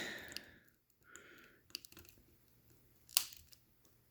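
Faint handling sounds of small parts and hand tools at a workbench: a soft rustle, a few tiny clicks and one sharper click a little after three seconds.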